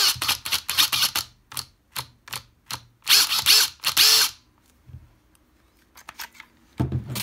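Makita 40Vmax TD001G cordless impact driver run free in short trigger pulls: a long burst, several quick blips, then two more longer runs, the motor spinning up and down each time.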